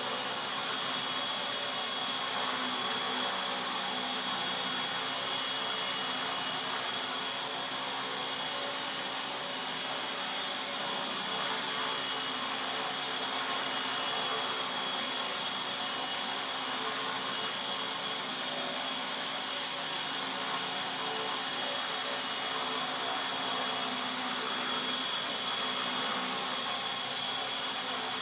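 Align T-Rex 450 SE electric RC helicopter hovering: a steady high-pitched whine from the motor and gears over a constant rushing noise from the rotors.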